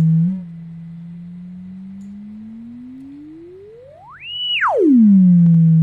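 Pure synthesized sine tone from a Doppler-effect simulator. It holds a low steady pitch, then slowly glides up to a high whistle about four seconds in, holds briefly, and swoops quickly back down to the low pitch, louder again. The glide up and down is the simulated Doppler shift as the virtual source and detector approach and then pass each other.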